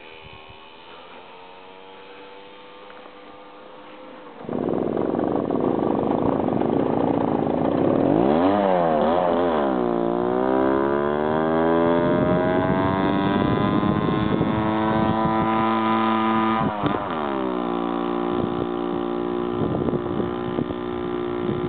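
Small two-stroke moped engine idling, then revved hard about four seconds in as it pulls away uphill. Its pitch climbs and drops back sharply twice as it gathers speed.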